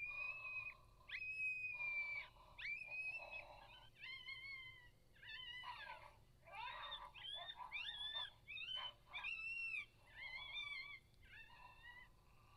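Coyote howls and yips: a run of high, drawn-out wavering cries about a second long each, some dropping in pitch at the end, crowding into overlapping calls in the middle before dying away near the end.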